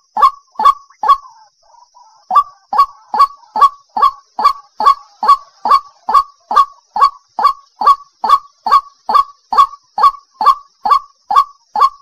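White-breasted waterhen calling: a long, monotonous series of short notes, about two a second, each sweeping quickly up in pitch. There is a brief pause about a second in, then the series carries on evenly.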